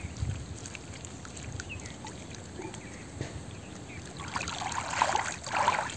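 Shallow muddy paddy water splashing and sloshing as hands work in it, packing mud around a bamboo fish trap set in a gap in the bund, with two louder splashes near the end.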